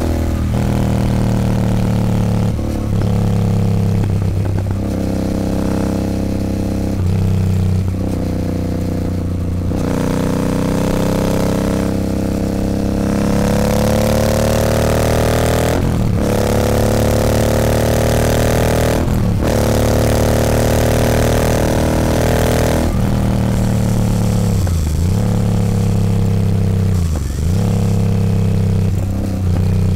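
Royal Enfield Continental GT 650's parallel-twin engine running through a Nuke aftermarket exhaust while riding. The revs climb steadily, then drop briefly at repeated gear changes before climbing again.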